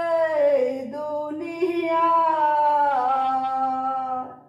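A woman singing a Bengali Islamic gojol (devotional song) unaccompanied. She draws out one word as a long held note that bends gently in pitch, then fades out near the end.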